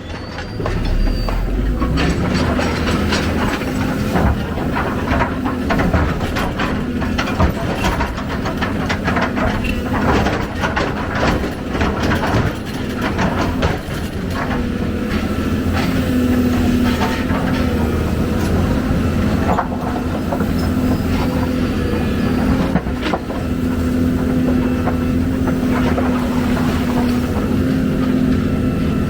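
Excavator's diesel engine running steadily under load, with repeated metal clanks and knocks from the first few seconds to about halfway, then a steadier engine drone.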